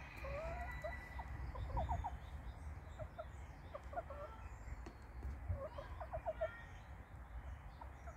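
Chickens clucking softly in short runs of quick notes, a few seconds apart, over a steady low rumble.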